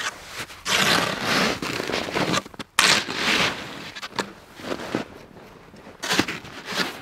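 Snow shovel blade cutting and scraping into deep, dense snow, crunching in a few long strokes with shorter ones near the end, as blocks of snow are cut out. A few sharp knocks come between the strokes.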